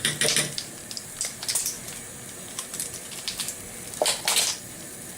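Metal measuring spoons clinking and tapping against cooking pots in several short clatters, with brief scrapes, while spice is added.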